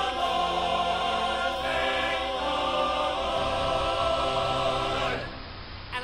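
Show-tune chorus singing a long held chord, which stops about five seconds in.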